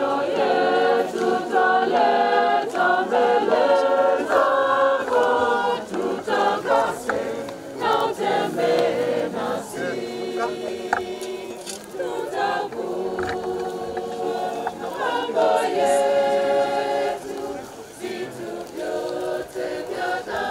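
A choir singing a funeral hymn, growing a little softer near the end.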